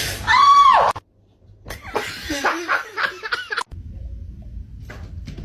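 A loud drawn-out cry that rises and then falls in pitch, then after a short break a person laughing for about two seconds; a low hum with a few faint clicks near the end.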